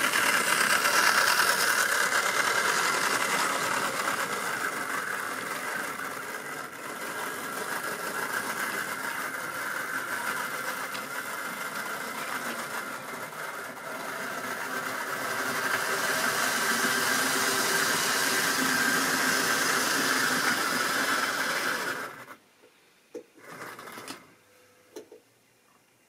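Tri-ang OO-gauge model diesel shunter and its vans running on metal track, a continuous whirr of the electric motor with the wheels rattling over the rails. It is loud at first as the train passes close, eases, then swells again before cutting off suddenly about 22 seconds in, followed by a few faint clicks.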